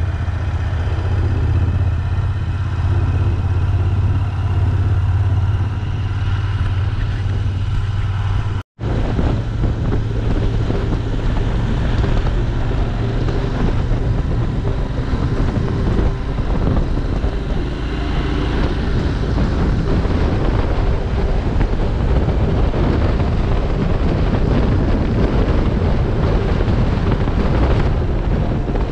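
Royal Enfield Interceptor 650's parallel-twin engine running at a steady pace under way, with wind noise on the microphone. About nine seconds in, the sound drops out for an instant; after that the wind rush is heavier and the engine note less distinct.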